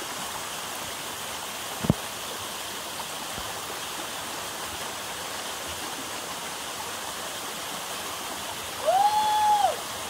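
Steady rush of a small waterfall pouring into a rock pool. One sharp knock about two seconds in, and near the end a woman's voice lets out a single long, held call that rises and falls away.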